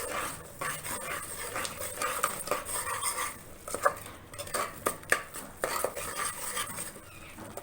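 A spoon stirring spiced masala paste in a pressure cooker, with irregular scrapes and clinks of the spoon against the metal pot and a few sharper knocks. A faint sizzle of the masala frying in oil runs underneath.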